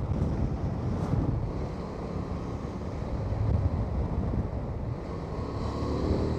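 Wind buffeting the microphone while riding, over the steady rumble of a 2025 Honda Transalp 750's parallel-twin engine. The engine note rises near the end.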